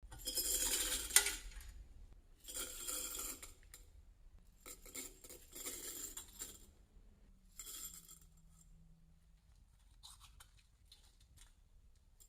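Loose aluminium pop tabs rattling and clinking against each other in four bursts, the first the loudest, followed by a few faint clicks.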